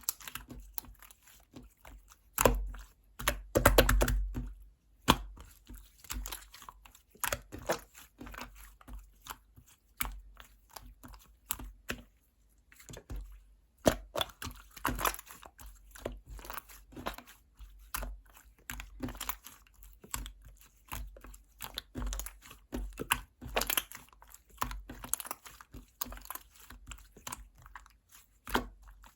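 Slime being squeezed and stretched by hand, making many irregular sticky clicks and pops; the loudest squishing comes about three to four seconds in.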